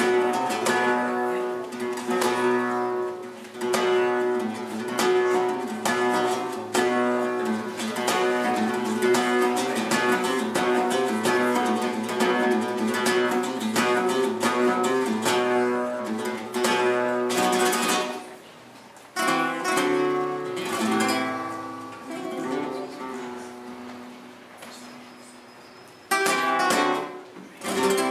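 Flamenco guitar playing: rapid strummed chords with sharp, close-set strokes, thinning to quieter, sparser notes about two-thirds of the way through, then loud strummed strokes again near the end.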